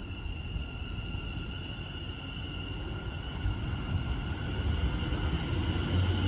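Greater Anglia Class 720 Aventra electric multiple unit drawing along the platform past the listener. A steady whine from its electric traction equipment sits over a rumble of wheels on rail, and the rumble grows louder as the train comes level.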